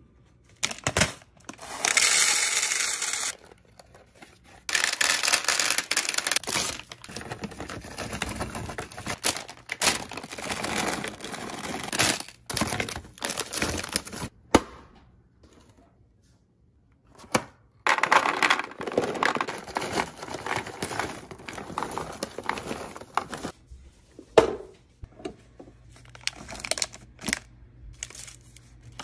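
Plastic candy bags and snack wrappers crinkling and rustling as they are torn open and handled, with candy poured into clear plastic organizer bins. Sharp knocks of plastic on plastic come a few times.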